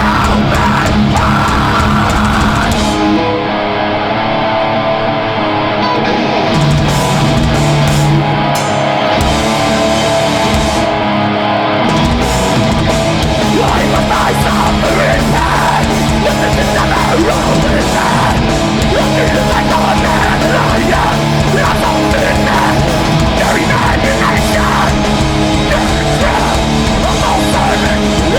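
Live hardcore/metal band playing loud, with heavy distorted guitars. For several seconds in the first half the drums and bass drop out, leaving mostly guitar, and the full band comes back in about twelve seconds in.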